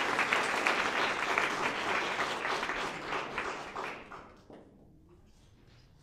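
Audience clapping, dying away about four seconds in.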